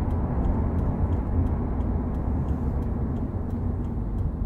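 Inside the cabin of a 2015 Subaru WRX, its turbocharged 2.0-litre flat-four runs with a steady low rumble. Faint, evenly spaced ticks sound over it.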